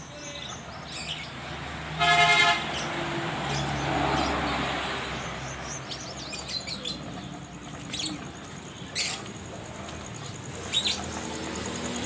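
A vehicle horn toots once, briefly, about two seconds in, over road traffic noise that swells as a vehicle passes. Faint bird chirps and a few clicks come through.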